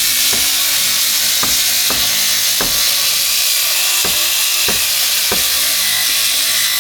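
Regular knocks, a little under two a second, over a loud, steady, high-pitched hiss: tapping from repair work in a boat workshop.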